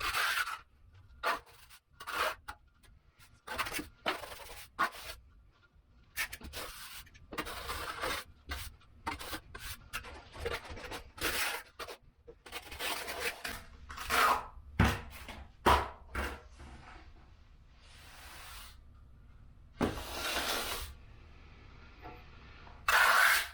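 Finishing trowels scraping and smoothing wet mortar on a shower curb, in many short, irregular strokes, with a few longer sweeps near the end.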